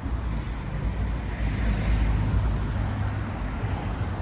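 Outdoor street noise with wind rumbling on the microphone, the noise swelling about two seconds in.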